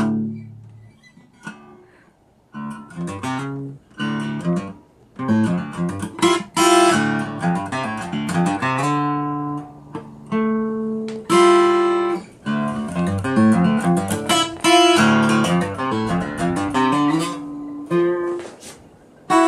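Cutaway acoustic guitar being played, a run of picked notes and chords, with a short pause about a second in before the playing picks up again.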